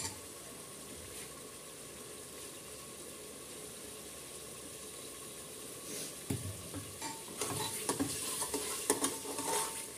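Ground-spice masala sizzling steadily in hot oil in a pressure cooker. About six seconds in, a spatula starts stirring and scraping it around the pot's base, with light knocks against the pot.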